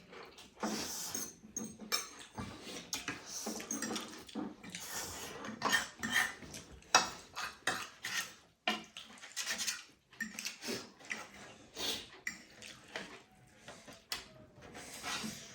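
Spoons and forks clinking and scraping against plates and bowls during eating, in many irregular sharp clicks.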